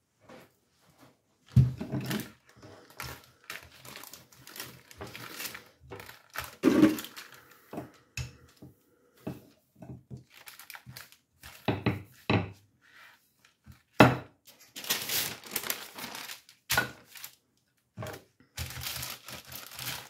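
Wooden rolling pin rolling and knocking on a countertop over dough, with parchment paper crinkling and rustling as it is handled and laid down. Irregular thumps come throughout, the loudest near the start and about two-thirds of the way through.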